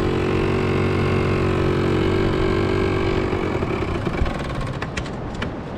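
Motorbike engine running steadily at low revs, then stopping about three and a half seconds in, followed by a few light clicks and knocks.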